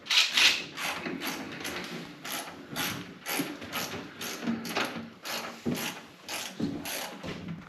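Ratchet wrench loosening bolts, its pawl clicking in quick repeated strokes, about two to three a second.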